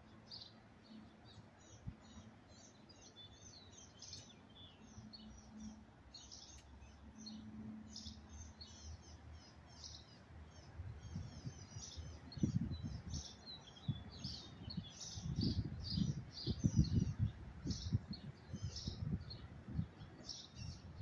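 Songbirds chirping and twittering throughout, in many short, high calls. In the second half, irregular low rumbling gusts come in and are louder than the birds.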